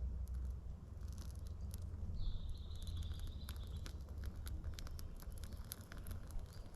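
Damp birch bark and spruce twigs crackling as they catch fire, with scattered sharp crackles over a steady low rumble.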